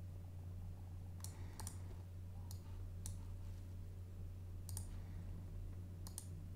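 Computer mouse buttons clicking several times, some in quick double-clicks, over a steady low hum.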